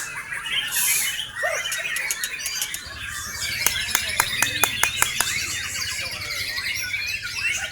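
White-rumped shamas (murai batu) chirping and calling over one another in dense, fast phrases, played as lure song for a caged shama. A quick run of sharp clicks comes about halfway through.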